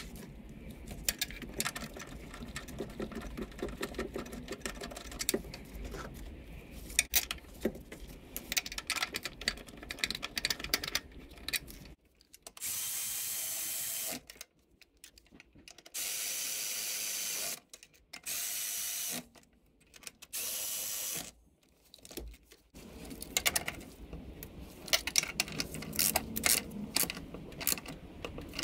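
Cordless electric ratchet run in four short spurts of a second or two each, tightening the throttle body bolts. Before and after them come light clicks and rattles of hands fitting parts, hoses and connectors.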